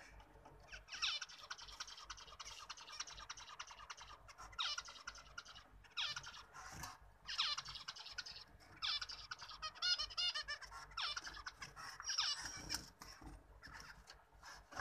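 Zebra finches singing and calling in a cage: a string of high-pitched bursts of rapid notes, each about a second long, one after another with short gaps between them.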